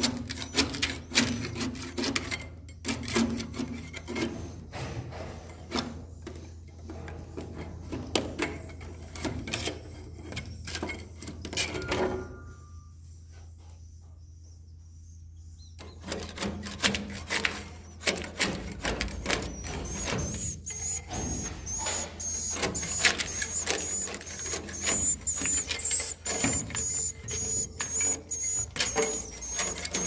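Swiftlet nests being scraped off wooden roosting planks with a metal scraper: quick scraping and clicking strokes, pausing for a few seconds about halfway. A thin, high, wavering twitter of swiftlet calls runs behind it in the second half.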